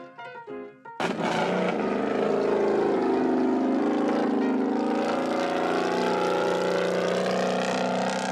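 An off-road vehicle's engine running hard and revving, its pitch wavering up and down, with a rushing noise over it. It cuts in suddenly about a second in, after a snatch of music.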